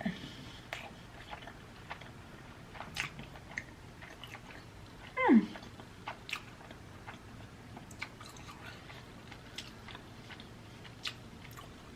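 A person chewing a chili cheese dog, with scattered small mouth clicks. About five seconds in there is one short, loud vocal sound that slides down in pitch.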